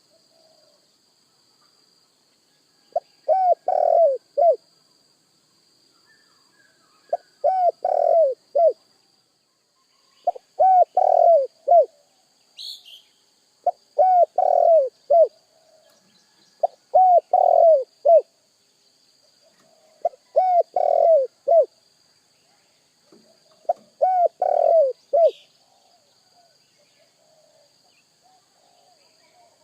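Spotted dove (tekukur) cooing: seven repeated phrases of three or four low coo notes, one about every three and a half seconds, stopping about four seconds before the end.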